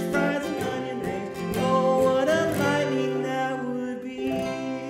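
An acoustic guitar and a ukulele strummed together in a steady rhythm, playing the chords of a children's song.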